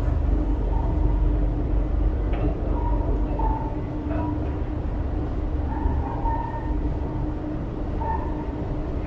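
Toronto subway train on Line 1 rumbling steadily through the station, with faint short high squeals coming and going over the low rumble.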